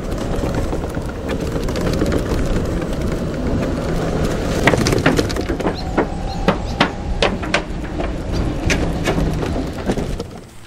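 Golf cart driving along a path, with a steady rumble of wheels and motion, then rattling and clacking as its wheels run over the planks of a wooden bridge from about halfway on.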